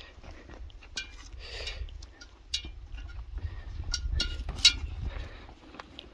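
Footsteps scuffing and scraping over rock, with sharp metallic clinks from a brass kettle and other gear swinging on the packs. The loudest clinks cluster about four seconds in. A low rumble runs underneath.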